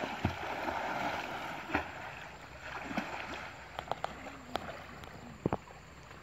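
River water splashing and churning as people wade in and swim. The sound is loudest in the first two seconds and then fades, with a few sharp slaps toward the end.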